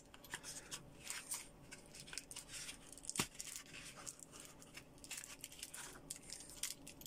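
Faint rustling and small clicks of hands handling a vape pen kit's packaging: a foam insert, plastic wrap and small metal parts. One sharper click comes about three seconds in.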